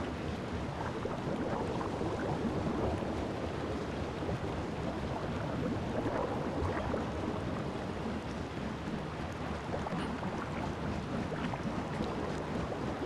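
Steady churning and water-sloshing noise of commercial front-loading washing machines running, with a low hum underneath.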